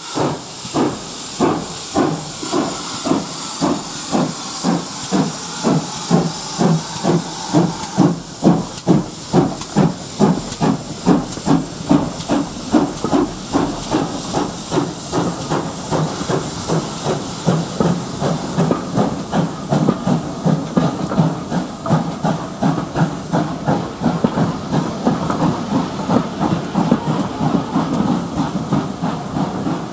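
Great Western 0-6-0 tank steam locomotives pulling a passenger train away, with exhaust chuffing over steady steam hiss. The beats start at about two a second and quicken as the train gathers speed.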